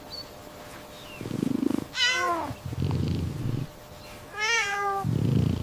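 Domestic cat meowing twice, each meow falling in pitch, with low purring before, between and after the meows.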